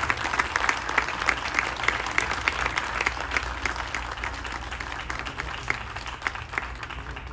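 Audience applauding, the clapping gradually thinning and fading toward the end.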